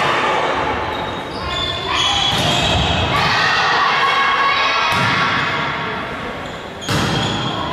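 Volleyball rally in a large gymnasium: the ball struck with several sharp hits, about four, against a continuous background of players' and spectators' shouting voices, echoing in the hall.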